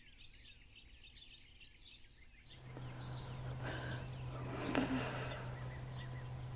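Faint birdsong outdoors, many short quick chirps, during the first couple of seconds. Then a steady low hum with background hiss takes over, with a single click partway through.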